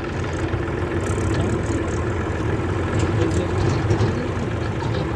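Heavy diesel engine running steadily at a low, even pitch, with a few light knocks and clicks over it.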